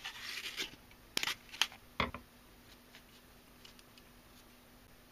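A piece of fresh ginger rasped once across a plastic hand slicer, followed about a second later by a few sharp snips of kitchen scissors cutting the ginger slices, then faint clicks.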